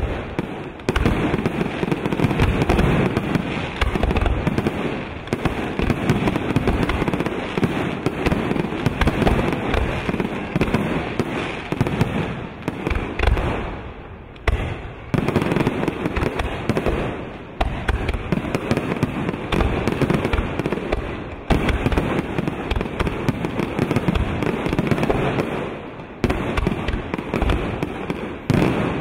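Professional aerial fireworks display: shells bursting in quick succession with continuous crackling, the bangs running dense and overlapping. There is a brief lull about halfway through, then the barrage picks up again.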